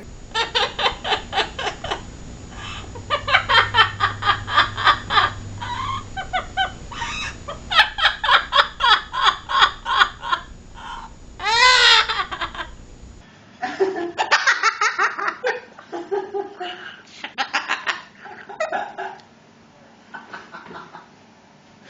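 Parrot imitating human laughter in long, rapid runs of ha-ha-ha, with one wavering up-and-down call about twelve seconds in. After a change of clip about a second later, the laughing goes on, less steadily.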